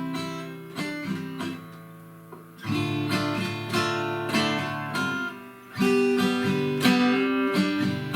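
Acoustic guitar played with the fingers, without a pick: chords struck about 3 and 6 seconds in and left to ring, with single notes picked between them, including a hammer-on within the G chord.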